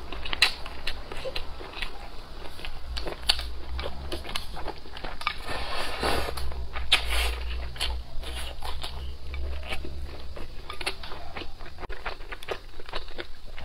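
Close-miked chewing and crunching of food, full of short crisp clicks, with a longer noisy stretch about six seconds in as she eats straight from the rim of the bowl.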